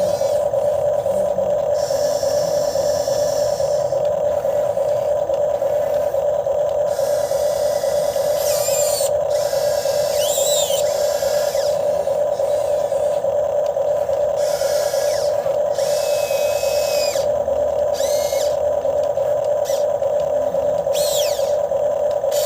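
RC hydraulic excavator's pump running with a steady whine, with short bursts of higher hissing and whirring now and then as the arm and bucket are worked.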